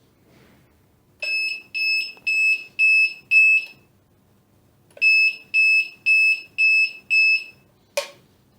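Electronic buzzer of a label-cutting machine's controller sounding two runs of five short high-pitched beeps, about two a second, with a pause of over a second between the runs. A single sharp click follows near the end.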